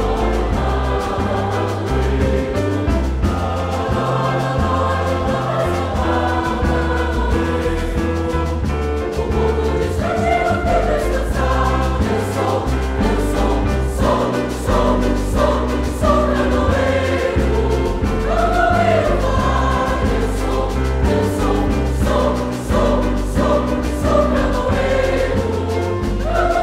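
Mixed choir singing a Parintins boi-bumbá toada over a low instrumental accompaniment; the voices grow stronger from about ten seconds in.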